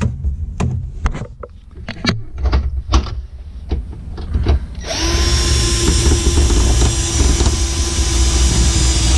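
Cordless power driver: clicks and knocks of the tool and socket being handled, then about five seconds in the motor starts and spins steadily for several seconds, driving a bolt.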